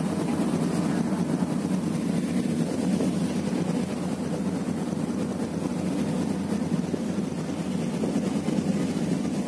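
Steady low rumble of a passenger ship underway, heard from its open deck.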